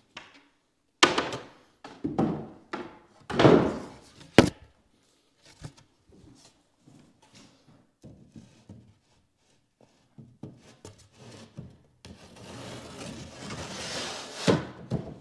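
Wooden cabinet panels knocking and thunking as they are handled and fitted together, with several sharp knocks in the first few seconds, then a rustling, scraping stretch that ends in another thunk near the end.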